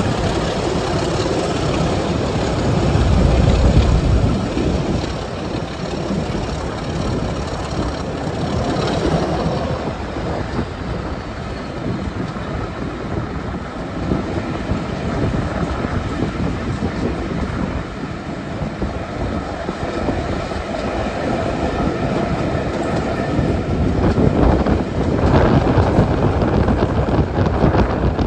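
Two British Rail Class 25 diesel locomotives working together at the head of the train, their engines under power as it pulls away, heard from an open carriage window along with the carriage running over the rails. The engine sound swells at the start and again near the end.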